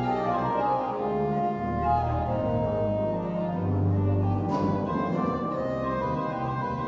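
Church organ playing held chords over deep, sustained pedal bass notes.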